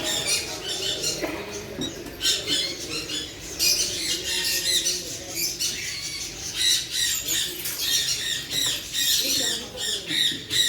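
Many pet-market birds chirping and squawking at once, a dense, continuous chatter of short, high calls.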